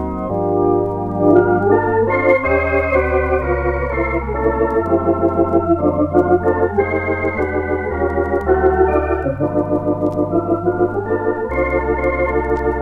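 Lowrey Contempo 80 electronic organ playing held chords over a bass line that moves every second or two. From about five seconds in the chords pulse with a fast, even tremolo.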